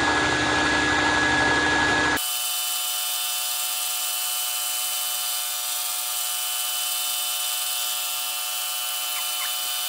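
Mill-drill spindle running steadily, turning a boring head that bores a precise hole in a steel lead-screw mount. About two seconds in, the sound changes abruptly to a thinner, steady whine of several held tones.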